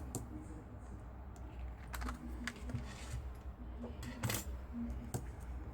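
Light, irregular clicks and taps of craft supplies (paper and a metal cutting die) being handled and set down on a desk.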